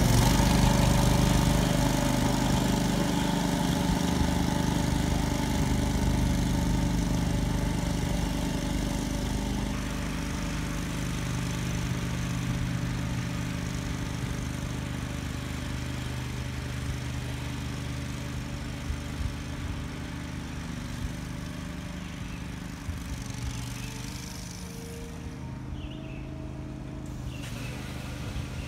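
John Deere 2500B triplex reel greens mower running steadily while mowing, its engine growing gradually fainter as it drives away.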